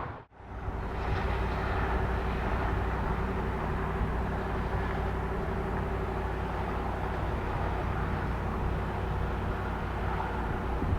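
Airbus A320neo airliner's jet engines on approach, a steady drone with a faint steady tone in it.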